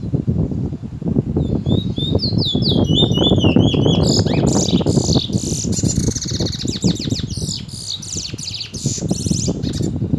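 Caged bullfinch (chestnut-bellied seed finch) singing its 'tee chor wheet' song: a run of quick whistled notes from about a second and a half in, building into a fast, dense trilled warble through the middle that breaks off just before the end. A steady low rumble runs underneath.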